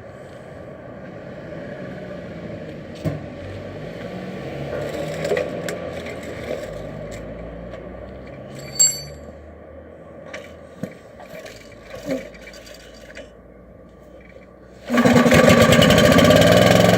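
Light clicks and scrapes with one ringing metallic clink, then about fifteen seconds in the 8 hp Briggs and Stratton industrial petrol engine of a Factair air compressor starts suddenly and runs with rapid, even firing. It is a warm start, the engine having run earlier.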